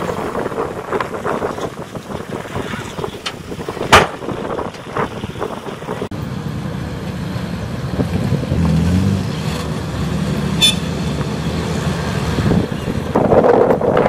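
Dump truck tipping its load: soil and stones sliding and clattering off the raised bed, with a loud knock about four seconds in. In the second half a loaded dump truck's engine runs as it drives along, its pitch shifting up and down.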